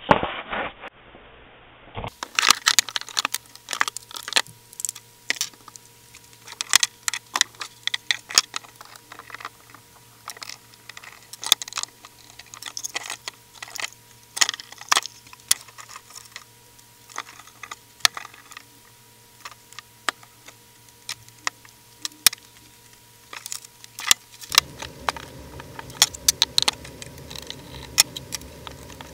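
Airsoft AK-47 being taken apart by hand: irregular clicks, knocks and clatter of metal and plastic parts handled and set down on a wooden workbench.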